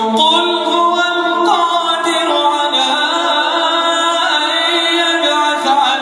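A man chanting Quran recitation in Arabic without accompaniment, in melodic tajweed style. He holds long notes, with a falling turn early on and a rise near the end.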